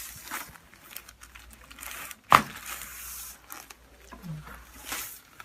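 A patient shifting on a chiropractic table, with soft rustling and crinkling of the table cover, then a single sharp, loud crack about two seconds in from a chiropractic adjustment.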